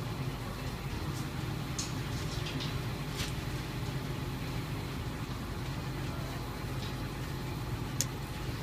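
Excavator's diesel engine running steadily with a low hum, with a few light clicks, the sharpest about eight seconds in.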